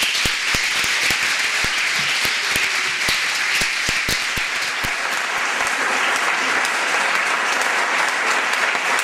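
An audience breaking into loud, sustained applause that starts abruptly and stays even.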